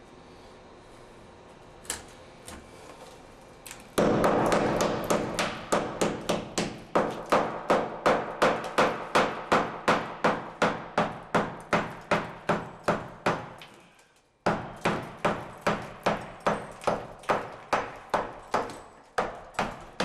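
Hammer blows chipping tile and cement out of a wall around a shower valve, starting about four seconds in and going at a steady three blows a second, with a brief pause about ten seconds later before they resume.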